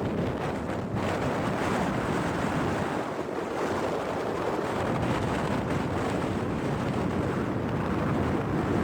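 Strong wind buffeting the microphone, with surf breaking and washing on the shore underneath, a steady rushing noise throughout.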